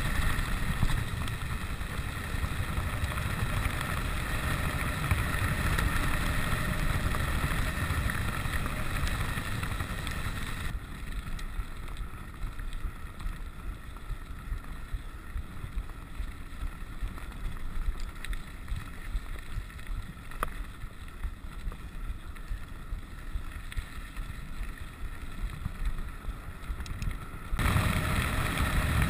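Wind rushing over the camera microphone and tyres rolling over a gravel road under a rigid 29er mountain bike. The noise eases off about eleven seconds in and comes back up near the end.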